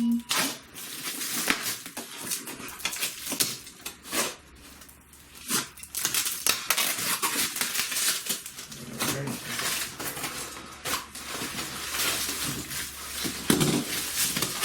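Cardboard comic short box being handled and opened: irregular rustling, scraping and sharp knocks of cardboard and packaging, with a quiet stretch around four to five seconds in.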